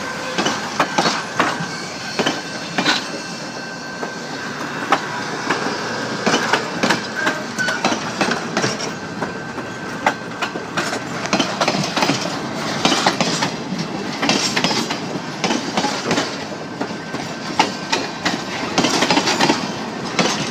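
Passenger cars rolling past at close range, their wheels and trucks clicking and clanking irregularly over the rail joints.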